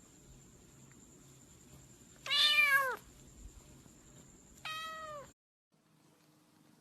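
A cat meowing twice: a louder call about two seconds in and a shorter one near the end, each falling in pitch as it ends.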